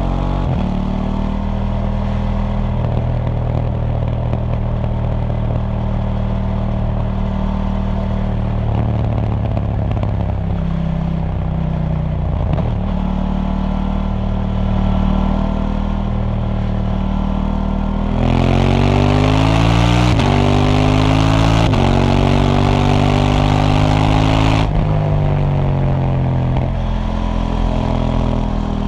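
KTM 790 Duke's 799 cc parallel-twin engine through its stock exhaust, running at a steady road speed with a few gear changes. About two-thirds of the way in it gets louder, accelerating hard up through the gears, then rolls off with the revs falling.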